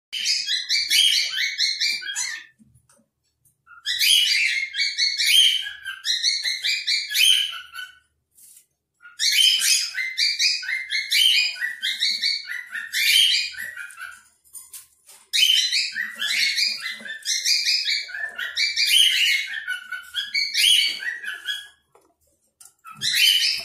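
Cockatiel chattering: quick, high chirps run together in several spells a few seconds long, with short pauses between them.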